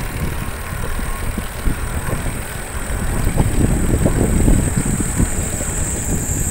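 Wind rumbling on the microphone and tyre noise from an electric-assist bicycle riding along a road. A steady high-pitched hiss sits above it and grows louder near the end.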